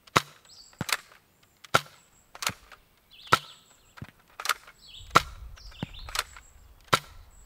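X-Shot Reflex 6 foam-dart revolver fired shot after shot: a string of about nine sharp plastic snaps, roughly one every three quarters of a second.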